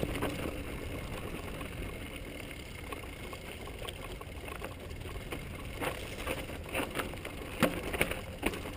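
Mountain bike descending a loose, rocky trail: a steady rush of wind and tyres rolling over gravel, with several sharp knocks and rattles from about six seconds in as the bike strikes rocks.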